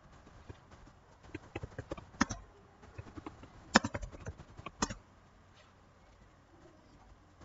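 Irregular clicks and taps of a computer keyboard and mouse for a few seconds, with three sharper clicks standing out, then only quiet room tone from about five seconds in.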